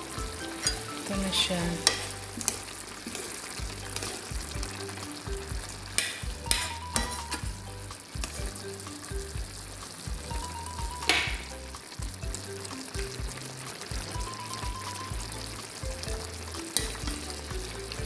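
Chicken afritada stew bubbling in a pan on the stove as a spatula stirs it, with a few sharp knocks of the spatula against the pan.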